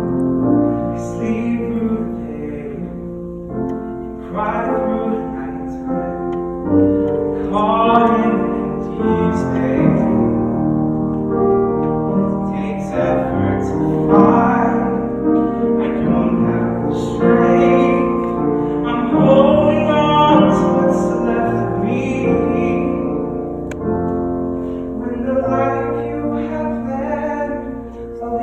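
Singing with piano accompaniment: held sung notes moving every second or two over the piano.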